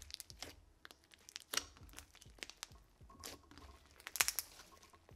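Thick, crunchy partial-foam slime with foam beads being squeezed and kneaded by hand, giving irregular clicks and snaps, loudest a little past four seconds in.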